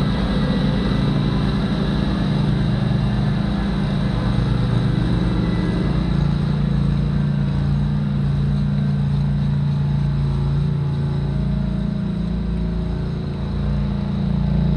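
An engine running steadily with a low, even hum, starting abruptly at a cut.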